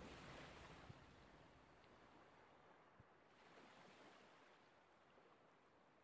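Near silence: a faint, even hiss that slowly fades away.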